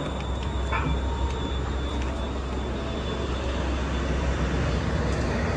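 Steady low rumble of a TRAX light-rail train, heard from inside the car.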